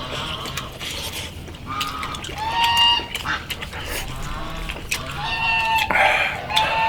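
Farmyard waterfowl calling, about four drawn-out nasal calls spread through the few seconds.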